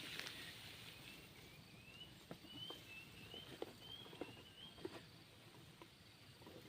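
Faint bird calls: a run of about ten short rising chirps in quick succession, with scattered light clicks and rustles.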